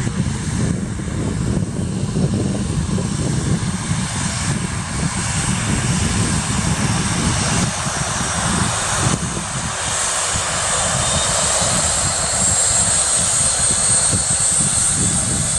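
Jet engines of a Boeing 737 freighter taxiing at low thrust: a steady low rumble with a hiss and a high whine. The hiss and whine grow louder about halfway through as the jet comes closer.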